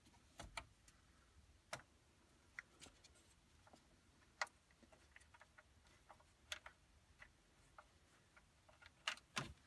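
Scattered light clicks and ticks of a screw being backed out of plastic dash trim, first with a screwdriver and then turned by fingers, with a close pair of sharper clicks near the end.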